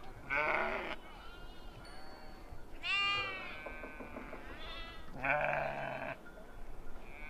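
Sheep and lambs of a flock bleating: three loud bleats about a second, three seconds and five seconds in, with fainter bleats between them.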